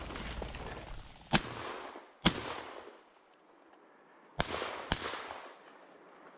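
Four shotgun shots, each sharp with a short echo: two about a second apart, then a quick pair about two seconds later. A rush of rustling noise runs under the first two shots.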